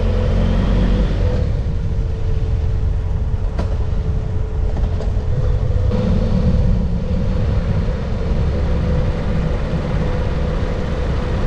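BMW F800GS motorcycle's parallel-twin engine running while riding through city streets, with a steady hum and heavy low rumble of wind and road noise on the bike-mounted microphone.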